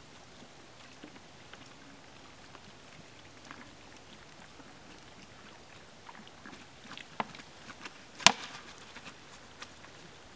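Quiet handling sounds as dry ice and a plastic 2-liter bottle are worked with by hand: scattered small clicks and knocks, with one sharp, loud click about eight seconds in.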